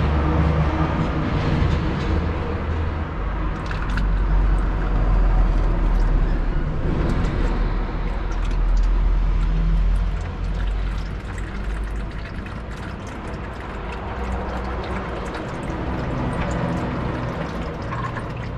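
Used engine oil trickling and dripping into a metal bucket as the oil filter is unscrewed, over a steady low rumble.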